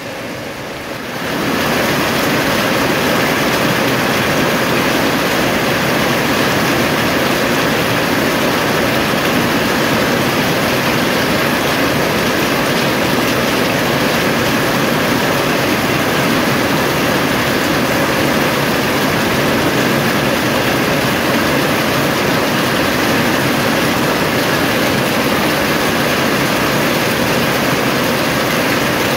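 Rain falling on corrugated metal roofs, a steady dense hiss that gets louder about a second and a half in and then holds.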